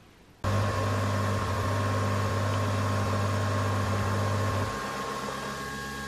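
Nespresso capsule coffee machine brewing: a loud, steady mechanical hum with a thin whine, starting suddenly about half a second in. Near the end the low hum drops away and the machine runs on more quietly.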